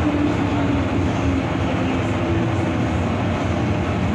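MTR Island Line M-Train, a Metro-Cammell electric multiple unit, running at speed through the tunnel: a steady rumble of wheels on rail with a humming motor tone that drifts down in pitch.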